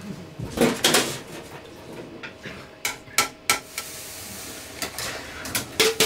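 Metal chip scoop and fryer utensils clattering against a stainless-steel deep-fryer counter as fries are scooped and tossed: a series of sharp metallic clanks, with a soft hiss near the middle.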